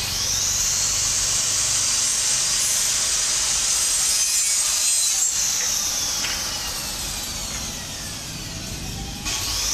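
Electric power saw starting with a sudden rising whine and cutting steadily. Its pitch sags briefly about five seconds in, and it winds down near the end before starting again.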